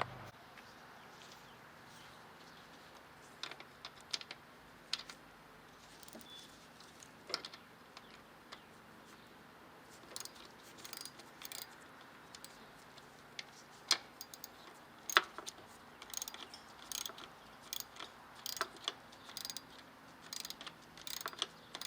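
Hand tools and small metal parts clicking and clinking during work on an engine: irregular light clicks, sparse at first and coming more often in the second half.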